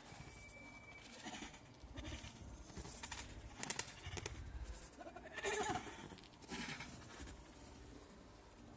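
Slowed-down scuffle sounds from a slow-motion self-defence struggle: drawn-out, deep vocal shouts and grunts that glide downward in pitch, the loudest about five and a half seconds in, with a few sharp knocks around the middle.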